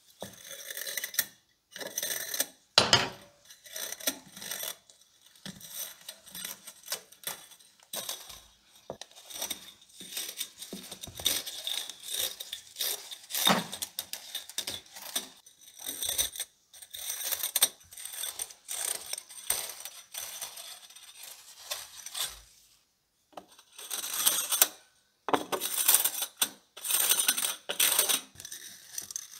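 Coiled heating-element wire being pulled out of the grooves of a ceramic hotplate base with pliers: irregular metallic jingling, scraping and clicking of the wire spring against the ceramic, in short stretches with brief pauses.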